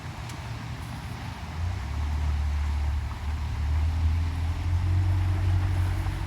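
Motorboat engine running over wind and water noise, its low hum getting louder about one and a half seconds in and again around four seconds.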